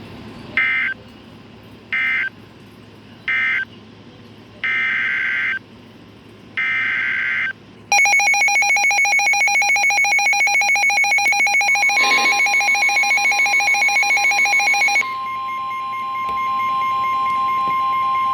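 NOAA Weather Radio SAME data bursts: three short buzzing bursts about a second apart, the end-of-message code closing one flood warning, then two longer bursts of header code for the next warning. About eight seconds in comes a loud pulsing alert tone, which turns steadier about seven seconds later.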